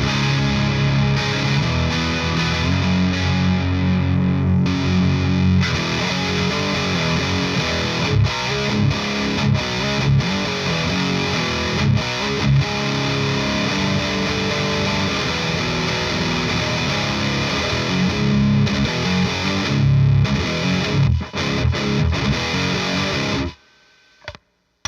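Electric guitar, a PRS 245 on its bridge Arcane Powerdozer pickup, played through an overdrive pedal that the player takes for a modified Klon circuit, into a PRS Sonzera 50 amp and a Mojotone Iso cab. It plays overdriven chords and riffs without a break, then stops abruptly near the end.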